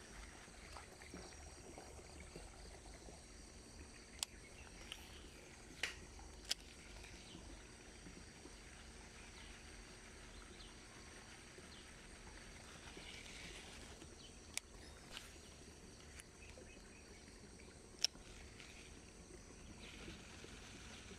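Quiet streamside ambience, a faint steady hiss with thin high steady tones, broken by a handful of sharp clicks, the loudest one late on.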